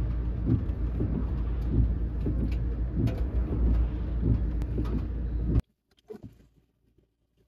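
Ford Transit Connect van's engine idling, heard from inside the cab as a steady low rumble; it cuts off suddenly about five and a half seconds in.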